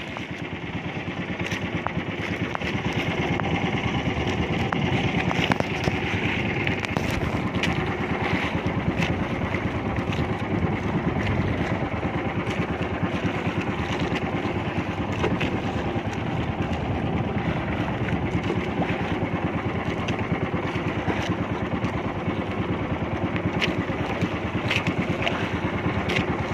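Outrigger fishing boat's engine running steadily while underway, a fast, even rumble, with water splashing along the outrigger.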